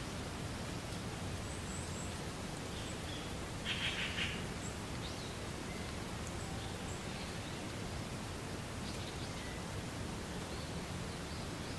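Wind blowing through reeds: a steady rustling hiss, with faint bird chirps here and there and one short, louder call just under four seconds in.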